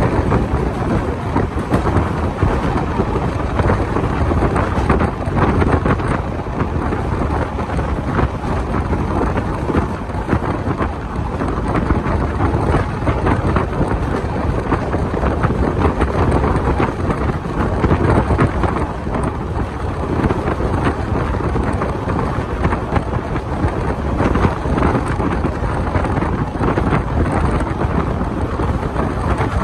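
Wind buffeting the microphone held out of a moving passenger coach's window, over the steady rumble and clatter of the train's wheels on the track.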